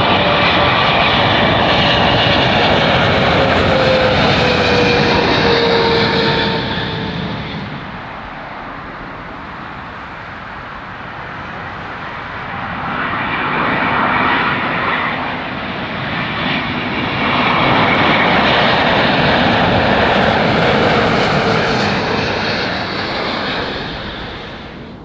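Low-flying jet airliners on final approach passing overhead. A Boeing 777's engines run loud, their whine sliding down in pitch as it passes and fading about eight seconds in; after a quieter spell an Airbus A350 builds up and passes loud in the second half, fading near the end.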